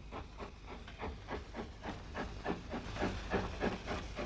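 Saddle tank steam locomotive hauling a loaded gypsum train, its exhaust beating about three to four times a second, steady and getting louder after the first second or so, then easing slightly near the end.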